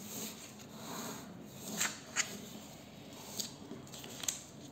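Faint scratching as a circle is drawn, with four sharp clicks about two seconds in, a second and a half in and near the end.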